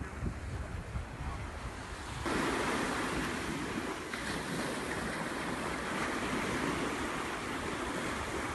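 Ocean surf breaking and washing up a sandy beach, with wind rumbling on the microphone. The wash steps up suddenly about two seconds in and stays louder.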